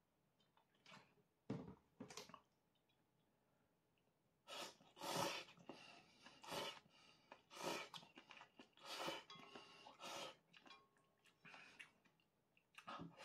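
Instant ramen noodles being slurped from chopsticks: a run of about five noisy slurps, roughly a second apart, after a few short knocks near the start.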